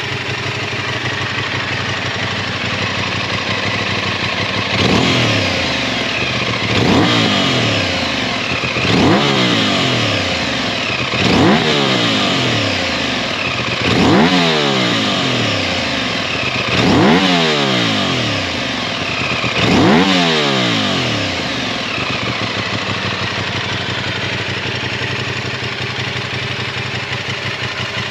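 Aprilia RS 660's 659 cc 270° parallel-twin engine, breathing through an SC Project full exhaust with a carbon end can, idling and then blipped about seven times, every two to three seconds. Each blip brings the revs up quickly before they drop back, and the engine then settles back to a steady idle.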